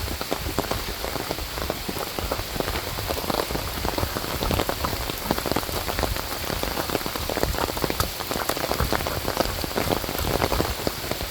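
Rain pattering on an umbrella held overhead: a steady, dense patter of many small drop hits.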